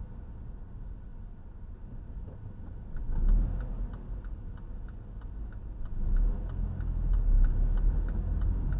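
Car turn-signal indicator clicking in the cabin, a steady tick about three times a second starting about three seconds in, over the car's low engine and tyre rumble, which grows louder as the car moves off.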